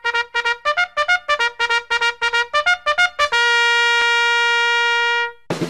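Background music: a melody of quick short notes that ends on one long held note, then a drum beat comes in near the end.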